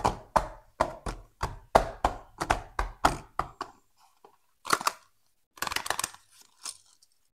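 Fingers tapping on small cardboard toy-car boxes: about a dozen sharp taps at roughly three a second, then scattered softer knocks and scrapes as a box is gripped and lifted.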